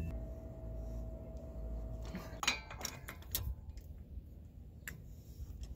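A few sharp metallic clicks and clinks from a breaker bar and 36 mm socket being worked on a pickup truck's front axle nut to loosen it, over a low steady background rumble.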